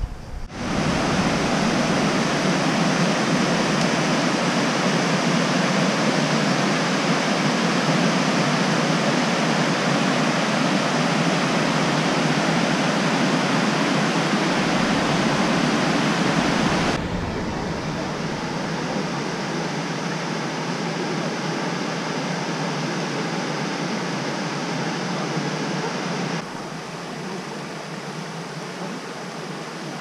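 Steady rushing of flowing river water and cascades. It drops suddenly to a quieter level about halfway through and again near the end.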